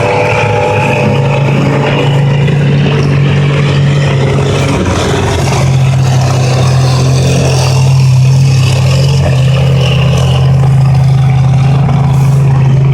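Combine harvester diesel engine running hard, a loud steady drone that shifts slightly in pitch about five seconds in and grows a little louder around eight seconds.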